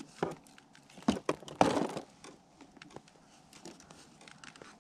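A few sudden crunching, crackling knocks on ice, the loudest and longest between about one and two seconds in, then only faint scattered ticks.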